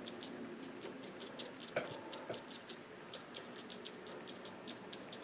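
Hake brush dabbing on watercolour paper: light, quick taps about four or five a second, with one louder knock nearly two seconds in.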